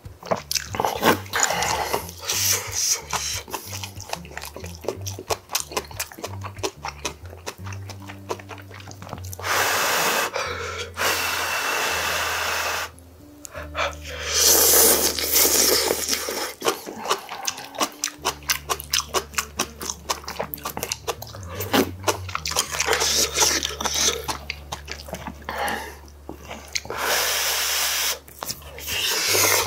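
Close-miked eating sounds of a man eating kimchi stew with rice: wet chewing and lip smacks as many short clicks, broken by several long, noisy slurps of noodles and broth.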